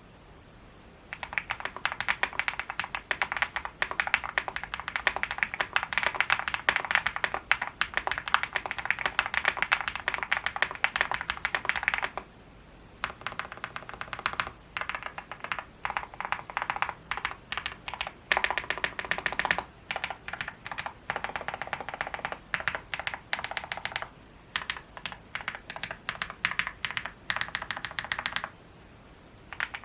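Akko SPR67 custom mechanical keyboard with linear switches, aluminium case on a spring tray mount, being typed on: thocky and creamy keystrokes. A fast, dense run of typing gives way to a short pause about twelve seconds in, then more uneven bursts of keystrokes that stop a second or so before the end.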